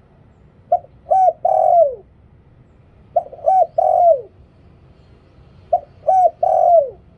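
Spotted dove cooing its song three times, about two and a half seconds apart. Each phrase is a short note, then a slightly longer one, then a long coo that falls in pitch at the end. This is the หลิ่วตัน calling style, used as a decoy call to lure other doves.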